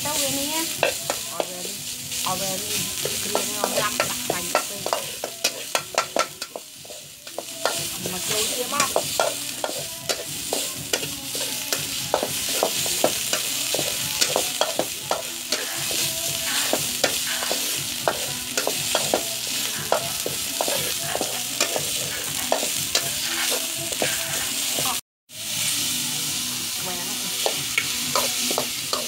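Metal spatula scraping and tapping around a steel wok in quick, uneven strokes while lemongrass paste sizzles in hot oil. The sound cuts out for a moment near the end, after which chicken is frying and being turned in the wok.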